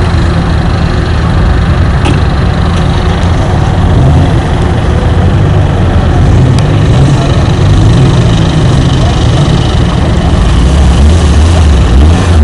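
Car engine idling steadily, a continuous low running sound without revving.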